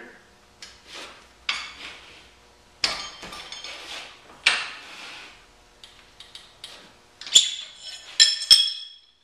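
Steel parts of a manual tube bender being handled: scattered knocks and rattles, then from about seven seconds in several sharp metal clinks that ring on as a steel pin is pulled from the bender.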